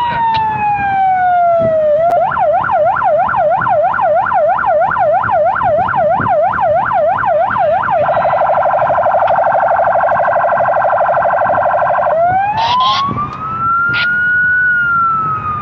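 Police patrol car's electronic siren cycling through its tones: a falling wail, then a fast yelp of about three sweeps a second from about two seconds in, a rapid warble from about eight seconds in, and a rising wail from about twelve seconds in that peaks and starts to fall near the end.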